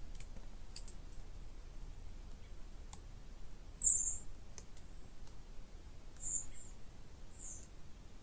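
Woodland ambience heard from inside a tent: a few short, high-pitched bird chirps, the loudest about four seconds in, with faint scattered clicks over a low, steady background rumble.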